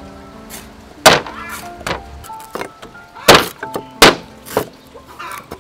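Cleaver chopping on a thick wooden chopping block: about six sharp strikes at uneven intervals, the loudest a little after one second and around three and four seconds in. Background music with held notes plays underneath.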